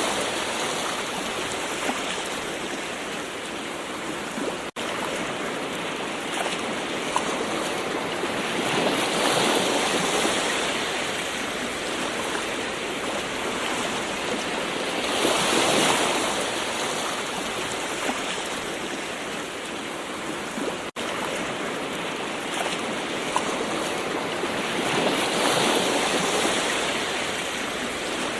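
Gentle ocean waves washing in, the surf swelling and easing about every six to ten seconds, with two very brief gaps in the sound.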